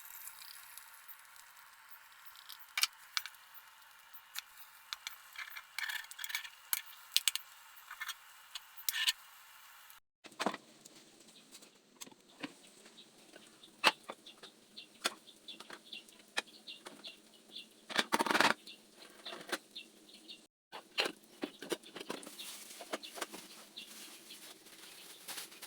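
Kitchen cooking sounds: scattered clicks, taps and clatter over a faint hiss, in several short clips with abrupt cuts between them.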